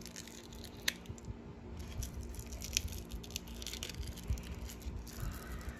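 Small handling noises from working a hole through a fencing mask's side strap: light scratching with scattered small clicks, and a sharper click about a second in and again near three seconds.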